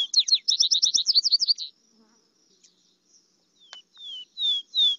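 Recorded vesper sparrow song played back: the end of one song, a fast, jumbled trill after its slurred opening, then after a pause of about two seconds the next song starts with its clear down-slurred whistles.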